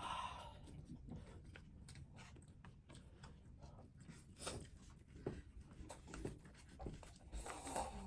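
People eating ramen: soft chewing with scattered small clicks and smacks at an uneven pace.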